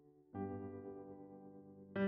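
Background keyboard music: a fading chord, then a new chord struck about a third of a second in that rings on and slowly dies away.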